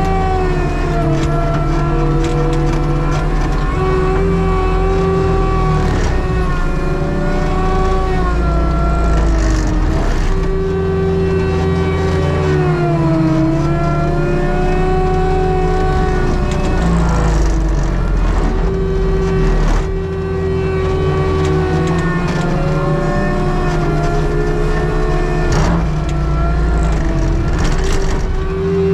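Skid steer engine and hydraulic forestry mulcher running hard. The engine pitch sags and recovers several times as the drum bogs into wood, with sharp cracks and crunches of brush and trees being ground.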